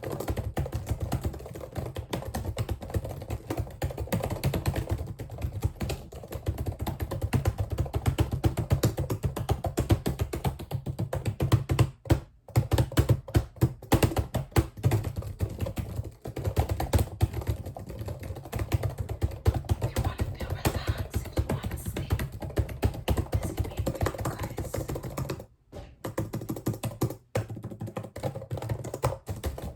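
Rapid, continuous clicking and tapping for ASMR, with short pauses about twelve seconds in and twice near the end.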